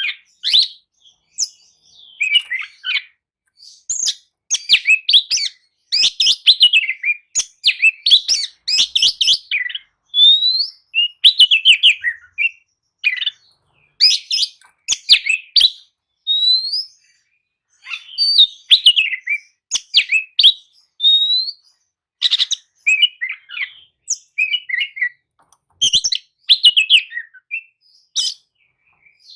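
Oriental magpie-robin singing: a varied run of clear whistles, slurred up- and down-sweeping notes and rapid chattering phrases, broken by short pauses.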